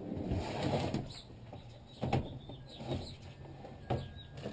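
Handling noise of gear and a hard plastic carrying case being opened: a rustle at the start, then a few sharp knocks and clicks about two, three and four seconds in.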